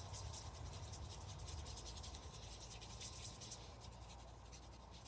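Faint rubbing of a glitter brush pen's tip over cardstock, in many light, short strokes.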